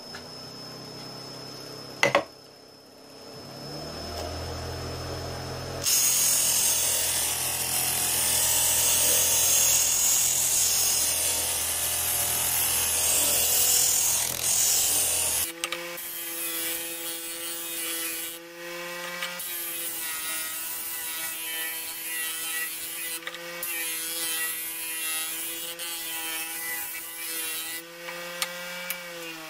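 Homemade disc sander, driven by a treadmill's permanent-magnet DC motor, running while a wooden board is sanded against its abrasive disc. There is a loud hiss of sanding for several seconds, then the motor's steady hum with shorter sanding strokes on and off. Right at the end the hum drops in pitch as the motor slows.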